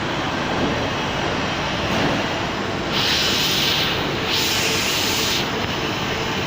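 Roller-blind fabric welding machine running with a steady mechanical noise. Two separate bursts of hiss, each about a second long, come about three seconds in and again a little later.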